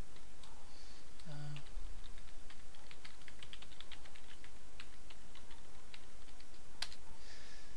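Computer keyboard typing: a quick, irregular run of key clicks, then one sharper click near the end.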